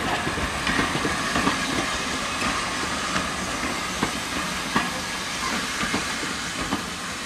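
Heritage passenger coaches rolling past at low speed: a steady rumble of wheels on rail with sharp clicks as the wheels cross the rail joints, easing off slightly as the last coach goes by.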